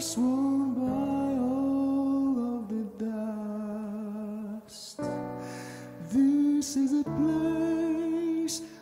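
A slow song: a singing voice holds long, slightly wavering notes over a soft accompaniment, with short breaks between phrases.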